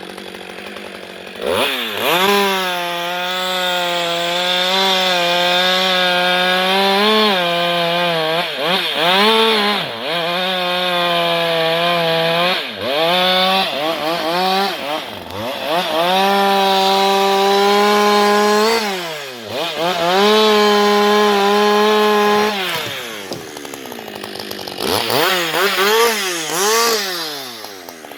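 Husqvarna 560XP two-stroke chainsaw revved up to high speed and cutting wood, its engine pitch dipping and recovering several times under the load. It drops back about three-quarters of the way through, revs up again briefly, then falls off near the end.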